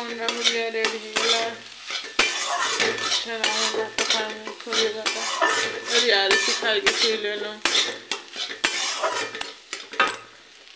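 Metal spatula scraping and clanking against an aluminium kadai as frying food is stirred and tossed over a gas flame, with a sizzle underneath. The scraping comes in quick repeated strokes, and the pan rings a little. It fades to a quieter sizzle near the end.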